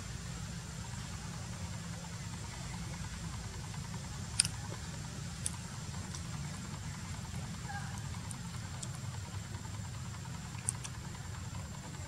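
Steady low outdoor rumble, with a thin high tone held throughout and a few short sharp clicks, the loudest about four and a half seconds in.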